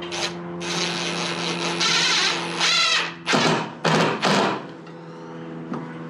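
Cordless Ridgid brushless drill-driver running to drive a bolt: one long run of a couple of seconds, then three short bursts in quick succession as the fastener is snugged down.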